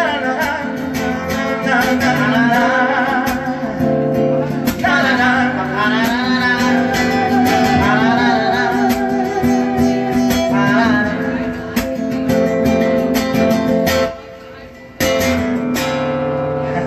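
A man singing a Spanish song to his own strummed acoustic guitar, played live. The voice drops out about two thirds through, leaving the guitar, which breaks off for about a second near the end and then comes back.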